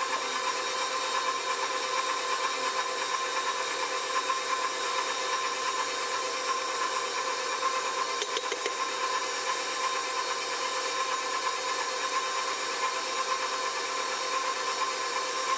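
KitchenAid stand mixer running steadily, its flat beater creaming softened butter and sugar in a stainless steel bowl: an even electric motor whine with one strong high tone.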